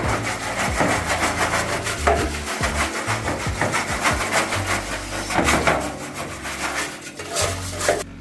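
Stiff brush scrubbing parts of a top-loading washing machine, a continuous run of quick rubbing strokes.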